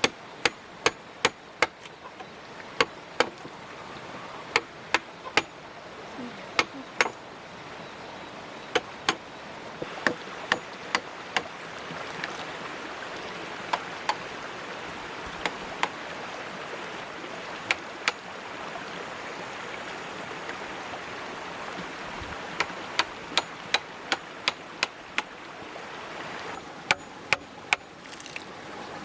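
Sharp knocks, about one to two a second, in runs with a pause a little past the middle, over a steady rushing noise that swells through the middle.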